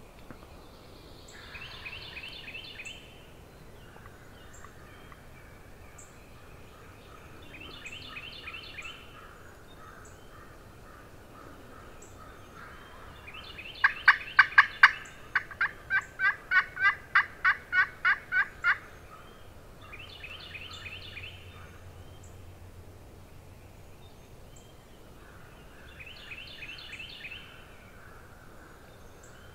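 Wild turkey gobbling four times, faint and distant. In the middle comes a much louder, close run of turkey yelps, about fifteen sharp notes over some five seconds.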